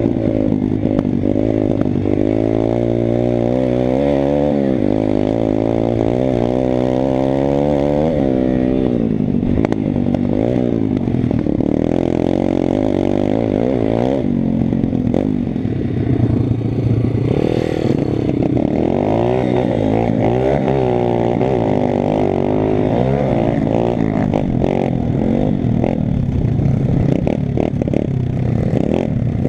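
Pit bike's single-cylinder four-stroke engine being ridden hard, its pitch rising and falling again and again as the throttle is opened and closed and the gears change.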